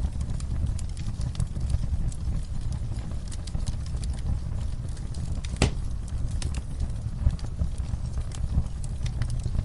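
Wood fire crackling: a steady low rumble of burning with frequent sharp pops and snaps, one louder pop a little past halfway.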